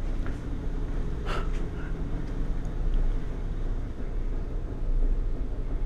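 Steady low hum and rumble of machinery in a ship's engine room, with one brief knock about a second and a half in.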